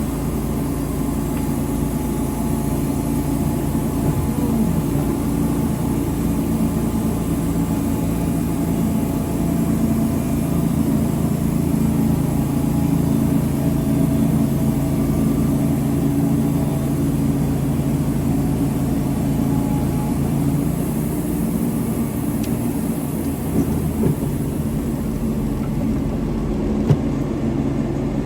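An engine running steadily at an even speed, with a fine regular firing pulse. A few light knocks come near the end.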